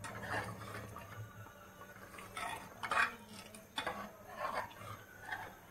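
Metal utensil clinking and scraping against a cooking pot in irregular strokes, the loudest about three seconds in, with a low hum that fades after about a second.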